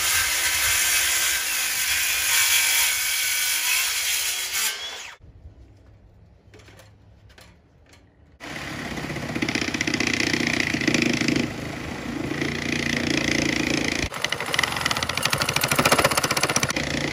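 Power saws making relief cuts in an 8x8 wooden deck post: a circular saw cuts for about five seconds, then after a short pause a reciprocating saw cuts with a fast back-and-forth stroke. The cuts are opened so the bowed post can be jacked straight.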